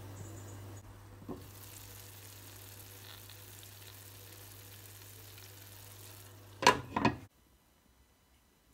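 Soy-sauce-braised chicken pieces sizzling softly in a wide pan as the last of the sauce cooks down, a faint, even hiss. Two short, loud sharp sounds come near the end.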